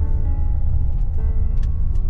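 Background music with held notes over a steady low rumble from a Nissan Titan pickup driving on a dirt road.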